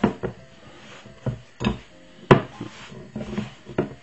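Hands mixing and squeezing dough in a glass bowl: irregular knocks and taps as fingers and dough hit the glass, with soft rubbing between them.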